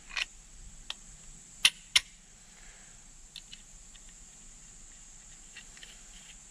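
Sharp metal clinks of a piston and connecting rod knocking against a big-block V8's engine block as they are handled. The two loudest come close together about a second and a half in, with lighter taps before and after.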